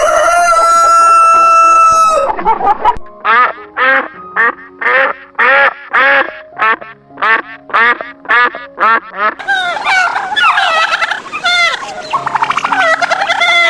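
A rooster's long held crow ends about two seconds in. A duck then quacks again and again, about twice a second, and about nine seconds in a flock of ducks breaks into dense overlapping quacking.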